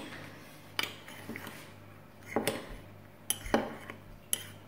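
Metal teaspoon stirring a dry chocolate mug-cake mix of flour, cocoa, sugar and baking powder in a ceramic mug, clinking against the mug's sides a handful of times.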